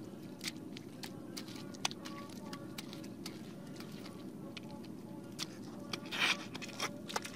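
A hoe chopping and scraping into wet mud, with irregular sharp strikes and a louder scrape about six seconds in. A steady low background noise runs underneath.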